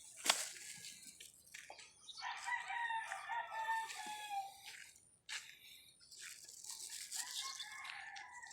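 A rooster crowing twice: one long crow about two seconds in and a shorter one near the end. A sharp click comes just at the start and is the loudest single sound.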